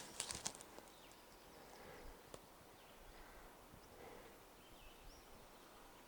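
Near silence: faint outdoor ambience, with a few soft clicks just after the start and a couple of faint, short, high chirps about four to five seconds in.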